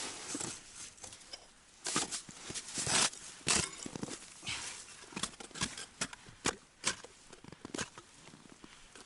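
Irregular crunches and light clicks and taps of handling on snow and ice at an ice-fishing hole, where a pike tip-up's line has fully run out. The louder crunches come in the first half and lighter clicks follow.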